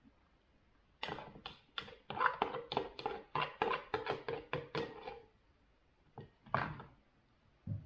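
Cutlery scraping and tapping against a ceramic bowl while food is scooped out, a quick run of clinks from about a second in to five seconds, then one more knock near the end.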